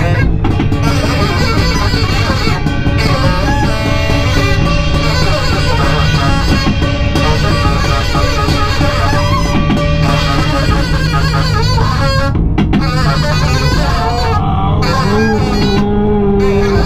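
Loud live noise music: a dense, unbroken wash of distorted sound over held, droning tones.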